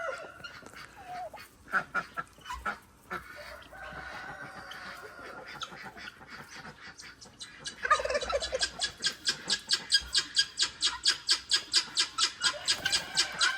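Farm poultry calling: scattered calls at first, then, from about eight seconds in, a fast, even run of sharp calls, about five a second, that keeps going.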